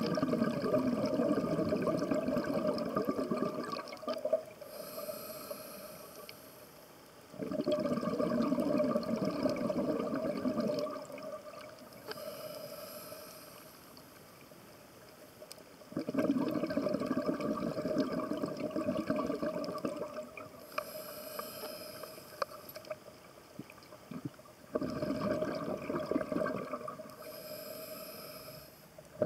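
Scuba diver breathing through a regulator underwater: four slow breaths, each a long exhalation of bubbling, rushing air followed by a shorter hissing inhalation.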